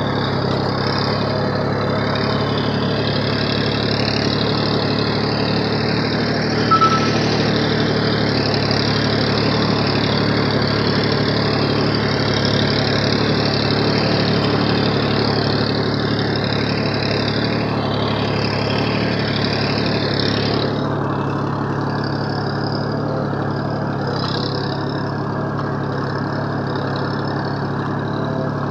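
Massey Ferguson 1035 DI tractor's three-cylinder diesel engine running steadily while the tractor is driven, with a mechanical rattle over it and a short clink about seven seconds in. About two-thirds of the way through, the higher rattle drops away and the engine runs on alone.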